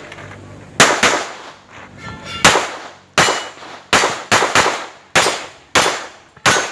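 A string of about a dozen gunshots at an uneven pace, several in quick pairs, each ringing briefly. This is a shooter running a course of fire after the range's "Stand by" start command.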